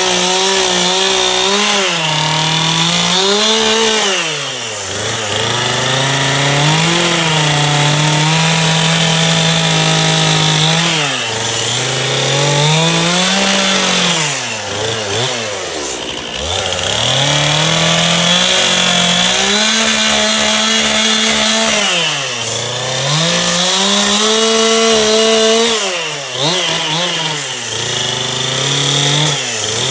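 Gas chainsaw carving into a wooden tree stump, running at full throttle. About five times its pitch sags toward idle and climbs back as the throttle is eased off and reopened between cuts.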